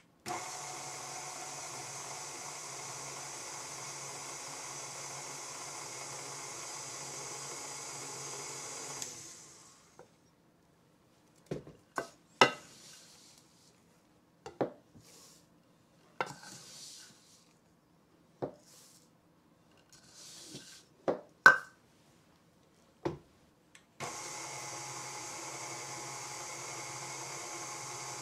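Electric tilt-head stand mixer running steadily as it mixes oatmeal batter in its steel bowl, then switched off about a third of the way in. A series of scattered knocks and taps follows as a measuring cup scoops the dry oat mixture and dumps it into the bowl. The mixer starts up again near the end.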